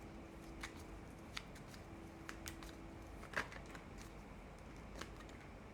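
Tarot cards being handled: a few light, scattered snaps and slides of cards, the sharpest about three and a half seconds in, over a faint steady hum.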